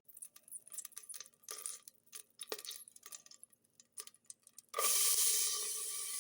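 Light clinks and scrapes of a utensil on a cooking pot, then about three-quarters of the way in a sudden steady sizzle as food goes into hot oil.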